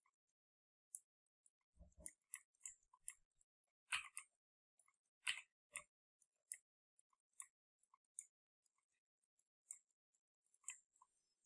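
Near silence broken by faint, irregular short clicks and ticks, roughly two a second, with the strongest about four and five seconds in.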